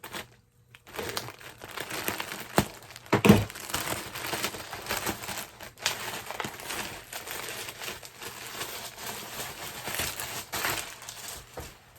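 Packaging being torn open and crinkled as a jacket is pulled out, a dense rustling with scattered crackles and a louder thump about three seconds in.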